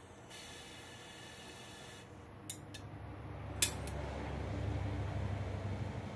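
High-output 100,000 BTU propane wok burner being lit. A short hiss and a few sharp clicks, the last and loudest about three and a half seconds in as the burner catches, then the steady low rush of the burning flame, growing louder.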